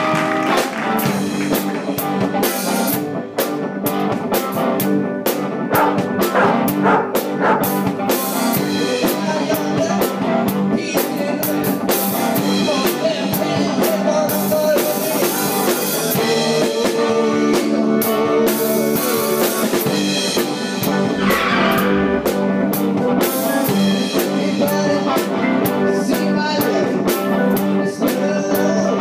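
A small rock band playing live: electric guitars and a drum kit together, heard from close to the drums.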